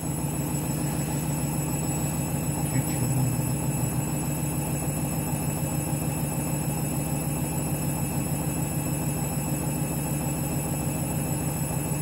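Candy Grand'O Vita front-loading washing machine on its final spin at its top speed of 400 rpm: a steady motor and drum hum. The duvet load is a bit out of balance.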